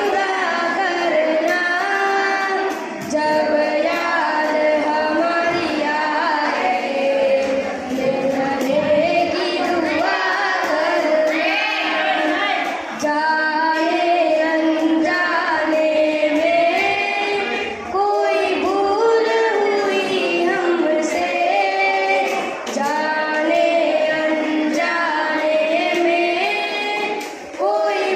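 Two boys singing a song together into a microphone, in unbroken children's voices, with brief pauses between lines.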